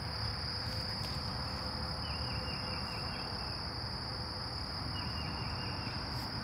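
Steady, unbroken high-pitched insect trill, with a short run of quick repeated chirping notes about two seconds in and again near the end, over a low background rumble.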